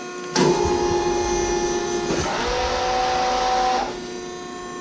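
Hurco CNC back gauge's drive motors running while the back gauge calibrates. The whine starts suddenly about half a second in, shifts pitch about two seconds in, and stops near the end.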